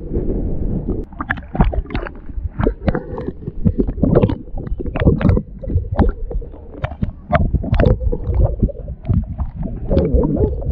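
Muffled underwater sound from a submerged camera: water churning low, with many irregular clicks and knocks as a hand digs and scoops in the sandy seabed.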